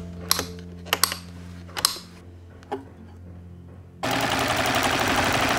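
Bernina 830 sewing machine: a few sharp clicks as its stitch-setting lever is moved, then about four seconds in the machine starts stitching at a fast, steady speed.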